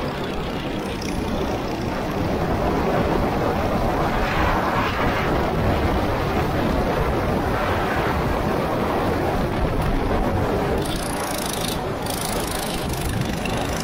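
Go-kart engine running on track, buried in a steady rushing noise that swells and eases a little.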